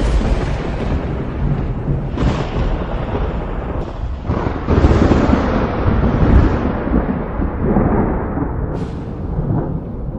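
Thunder rumbling continuously, with sudden new claps about two and four and a half seconds in, loudest a little past the middle.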